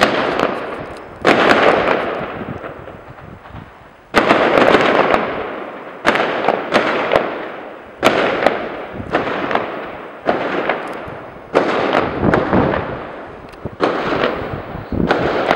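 Gunfire in repeated bursts, a new volley every one to two seconds, each crack rolling away in a long echo.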